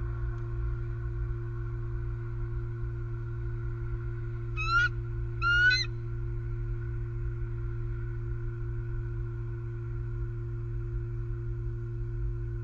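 Bald eagle giving two short bursts of high, chittering calls, each a quick run of rising notes, about five seconds in. A steady electrical hum from the nest-cam microphone runs underneath.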